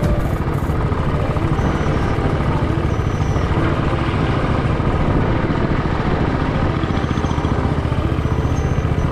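Motorcycle engine running steadily while riding, mixed with road and wind noise.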